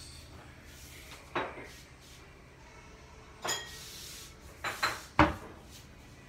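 Kitchen clatter: a ringing clink of a dish or utensil about three and a half seconds in, then a lower cabinet door being handled with a few knocks, ending in a sharp low thud a little after five seconds.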